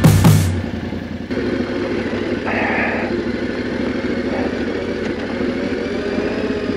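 Yamaha Ténéré 700 World Raid's parallel-twin engine running low and steady as the bike rides down a steep, stony dirt track. A music track cuts off in the first half-second.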